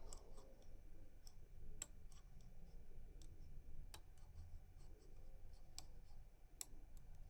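Faint, irregular small metallic clicks of a rotor lock pick working the pins inside a lock cylinder under light turning tension.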